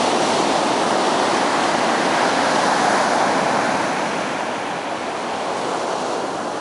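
Small ocean waves breaking and washing up a sandy beach: a continuous rushing surf that eases a little near the end.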